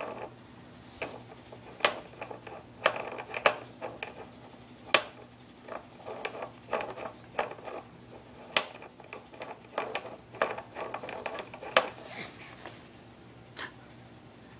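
Plastic toys on a baby walker's activity tray clicking and rattling as a baby spins and bats the ball spinner toy: irregular sharp clicks and knocks, a few every second.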